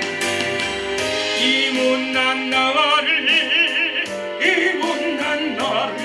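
Instrumental interlude of a gospel song's accompaniment track: a melody with wide vibrato over sustained chords and a steady beat.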